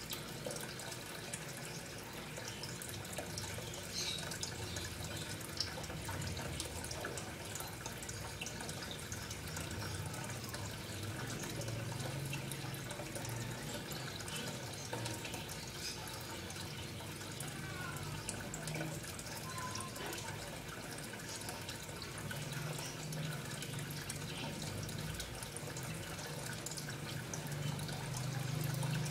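Water running and trickling steadily, with scattered small drips and a low hum underneath.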